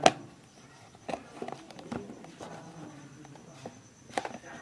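Scattered sharp taps and clicks of packaging and small items being handled during an unboxing, the loudest right at the start, with faint rustling between them.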